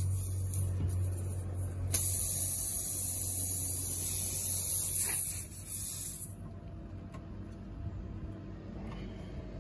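Steady high hiss of air escaping from a punctured tubeless car tyre while a rope plug is pushed in with the insertion tool. The hiss cuts off sharply about six seconds in as the plug seals. A low hum runs beneath it, and there is a single click about two seconds in.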